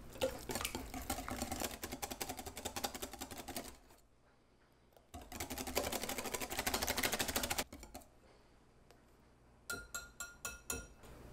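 Wire whisk beating walnut paste and heavy cream in a glass mixing bowl: a fast clatter of the wires against the glass in two bouts with short pauses between, then a few separate clinks with a short ring near the end.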